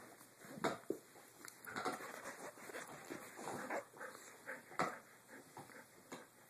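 Two dogs, a golden retriever and a white long-haired dog, play-wrestling at close range: irregular short grunts, snuffles and mouthing noises with a few sharp clicks.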